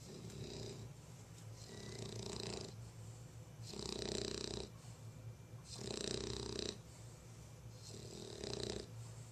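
English bulldog snoring in her sleep: a snore about every two seconds, five in all, each lasting about a second.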